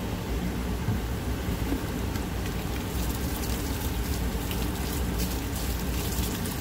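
Liquid poured from a plastic jug splashing through a wadded microfiber towel and onto wet pavement, the patter heaviest in the second half, over a steady low rumble.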